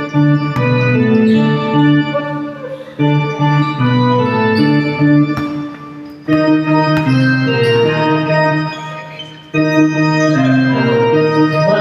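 Electronic organ playing short chord phrases, each struck about every three seconds and fading away, four in all.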